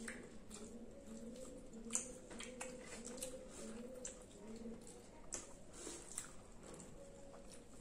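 Close-up eating sounds from two people eating with their hands: soft chewing and mouth clicks, with fingers mixing fried rice on plates. The sharpest click comes about two seconds in, and a faint low wavering tone hums underneath.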